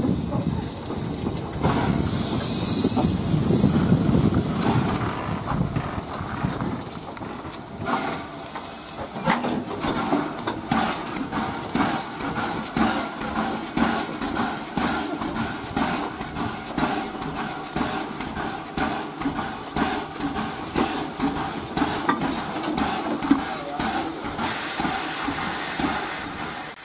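Steam locomotive hissing steam, then working with a steady rhythmic beat, a little under two beats a second.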